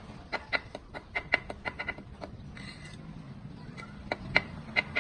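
Quick, irregular sharp taps and clicks on brick as bricks are set and knocked into place in mortar, a rapid run of them, a short pause, then a few more near the end.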